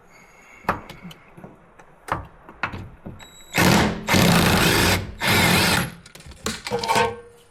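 A power tool runs in two short bursts, a longer one and then a shorter one, on the rear shock fasteners. Scattered clicks and knocks of tools come before and after the bursts.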